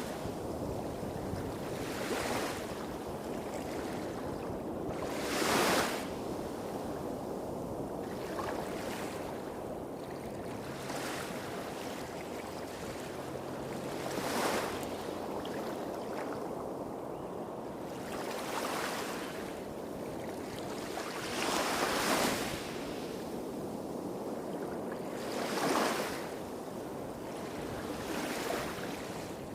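Small waves breaking gently on a beach, one swell of surf about every three to four seconds over a steady wash. A low rumble of bigger waves hitting rocks further off runs underneath.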